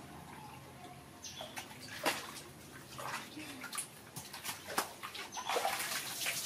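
Soapy water sloshing and splashing in a plastic basin as a small monkey is bathed, in a few separate splashes. Near the end, as the monkey is lifted out, water streams and drips off it back into the basin.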